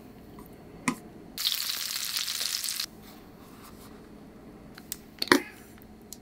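Hot oil sizzling for about a second and a half as pieces of starch-coated canned mackerel fry for tatsuta-age. A light click comes just before it, and a couple of short utensil knocks about five seconds in.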